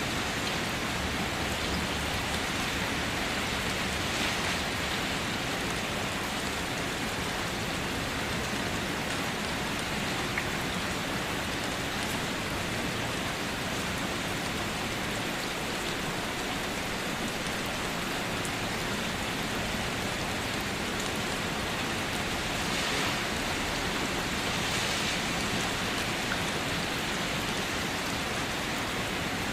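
Steady rain falling, an even hiss of many drops, swelling slightly twice near the end.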